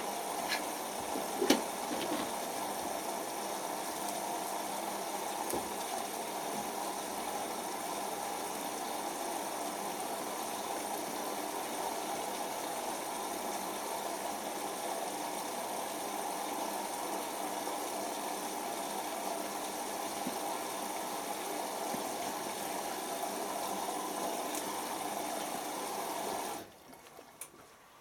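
Hoover Optima OPH714D washing machine taking in water with the drum standing still: a steady rush of water that cuts off abruptly near the end as the fill stops. A couple of sharp clicks sound in the first two seconds.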